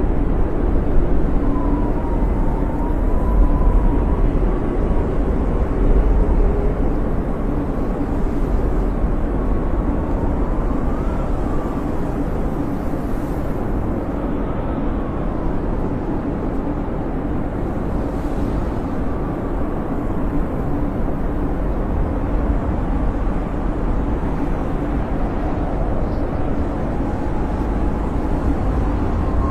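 Snowstorm wind blowing steadily, a deep rushing noise with a faint whistle that slides up and down in pitch.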